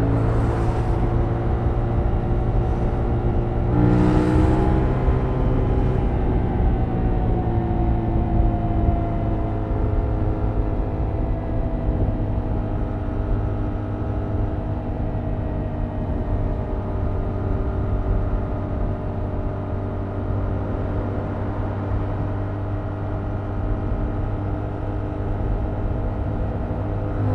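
Stock Yamaha MT-07's 689 cc parallel-twin engine running under way through its stock exhaust. It revs up briefly near the start and again about four seconds in, then holds a steady note whose pitch slowly sinks as it cruises.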